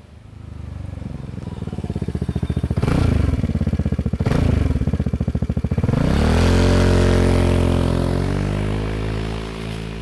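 Vespa GTS scooter's single-cylinder engine through a VRX racing exhaust with the dB killer fitted, riding past. The exhaust note swells as the scooter approaches, surging twice, then settles into a loud steady note about six seconds in and fades as the scooter moves away.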